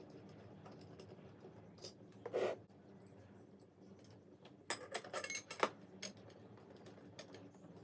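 Small metal hardware being handled during frame assembly: scattered light clicks and clinks, a short scrape about two and a half seconds in, and a quick cluster of clicks around the five-second mark, over a steady low hum.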